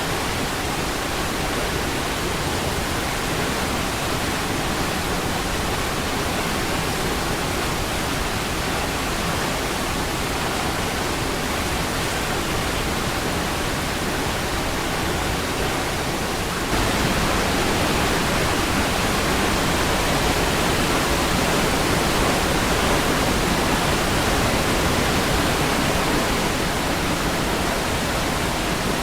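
Water of Niagara Falls rushing in a steady, even noise. A little past halfway it abruptly steps up louder, with more of the middle range.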